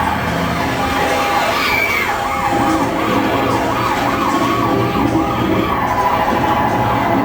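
Emergency sirens sounding, more than one at once: one yelps in quick up-and-down sweeps about two or three times a second while another holds a steadier wail.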